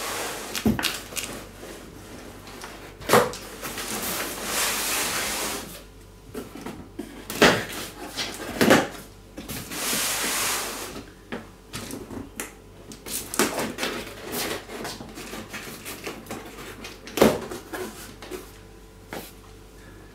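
A small knife cutting the packing tape on a cardboard flat-pack box, in two longer cuts of a second or more, with several sharp knocks and scrapes as the box is moved and turned on the benchtop.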